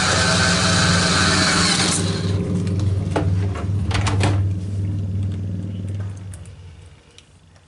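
Electric screwdriver whirring for about two seconds while driving in the top-cover screws of a DVD home cinema unit, then a few sharp clicks and knocks as the tool and screws are handled. A low hum carries on underneath and fades away near the end.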